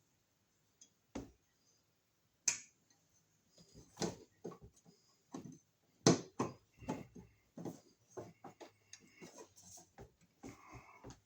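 Irregular clicks, taps and light knocks of hands working an electrical receptacle and its wiring into a wall box.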